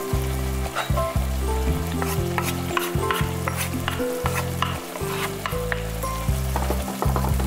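Apple compote bubbling in a stainless steel pan while a wooden spatula stirs it, giving many small clicks and scrapes. Background music with a low bass line plays underneath.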